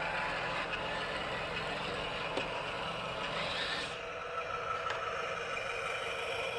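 Electric drive of an RC excavator whirring steadily as it works, with faint scrapes and clicks. About four seconds in, the whir shifts to a steadier tone.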